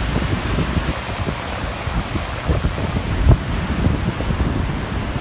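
Whitewater river rushing over boulders in a rocky gorge, a steady hiss of water, with wind buffeting the microphone in gusts.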